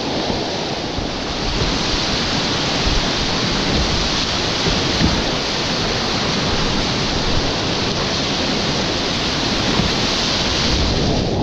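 Whitewater rapids rushing, a loud steady hiss of churning water with an irregular low rumble underneath. The rushing thins out sharply near the end.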